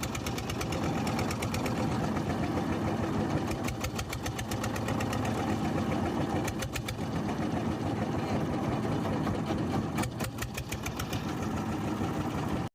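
Jiangdong 1125 single-cylinder diesel engine of a motorboat running steadily, with its rapid, even firing knock.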